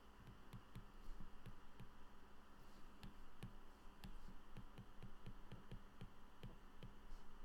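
Stylus tapping on a tablet's glass screen during handwriting: faint, irregular taps, several a second, over a steady low hum.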